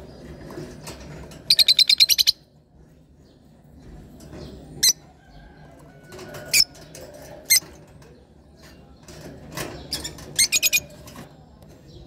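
Rosy-faced lovebirds chirping: a quick run of about eight sharp, high chirps near two seconds in, single shrill calls around five, six and a half and seven and a half seconds, and another quick run of four near the end.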